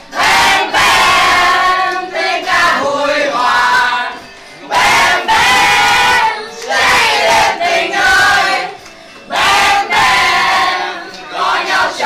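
A group of young people singing and shouting together in unison, in loud phrases a couple of seconds long with short breaks between.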